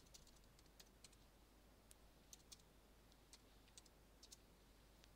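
Faint computer keyboard keystrokes, about a dozen spread irregularly, as an equation is retyped.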